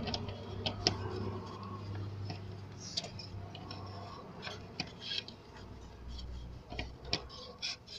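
Irregular sharp clicks and clinks of hand tools being handled on metal, over a low steady hum.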